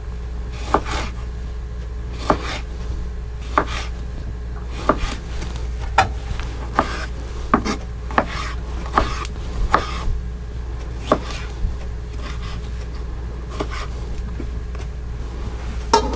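A chef's knife slicing a tomato on a plastic cutting board, the blade knocking sharply on the board about once a second, over a steady low hum.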